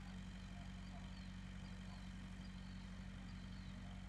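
Faint outdoor ambience: a steady low hum, with faint bird chirps coming and going over it.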